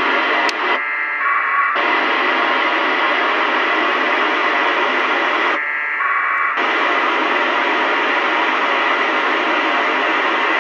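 FM radio receiver on the ISS APRS frequency, 145.825 MHz, giving a steady open-squelch hiss, broken twice, about a second in and about six seconds in, by a roughly one-second burst of APRS packet tones that quiets the hiss while a signal comes through.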